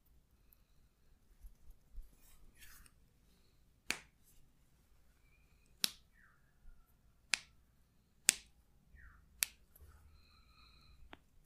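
Six sharp snaps one to two seconds apart, the loudest about two-thirds of the way through.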